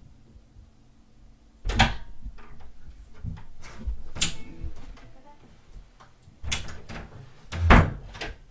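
A room door opening and closing as someone comes in: a few separate knocks and thumps, the loudest near the end.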